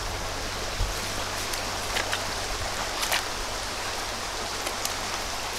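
Small rocky mountain stream running in a steady rush of water, with a few faint ticks about two and three seconds in.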